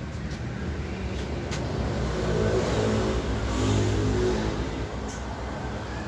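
A motor speeding up and then easing off, loudest around the middle, over a steady low hum.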